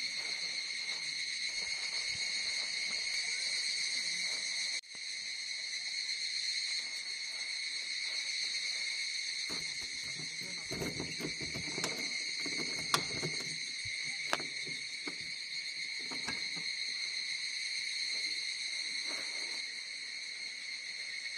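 Insects calling in a steady, shrill drone. About halfway through there is some rustling and two sharp clicks.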